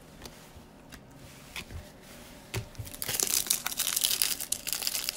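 A few soft clicks of cards being handled, then from about three seconds in the plastic wrapper of a trading-card pack crinkling as it is torn open.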